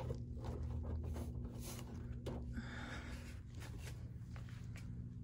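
Steady low hum of a shop with a thin constant tone, overlaid by faint scattered knocks and rustles of plastic drink bottles being handled and a shopping cart being moved.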